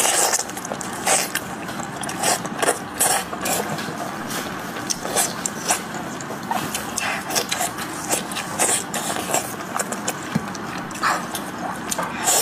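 Close-miked eating of sheep's head meat: chewing, smacking and tearing, heard as many irregular sharp wet clicks and crackles over a steady background hiss.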